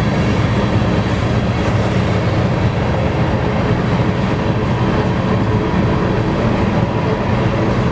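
Loaded grain train of hopper cars rolling past close by, with a steady low drone of diesel locomotive engines running at high throttle. The sound is loud and continuous throughout.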